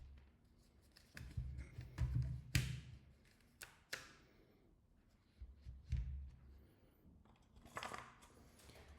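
Handling noise: a series of knocks and low thuds with a couple of brief scraping sounds, as objects are moved about on a work surface.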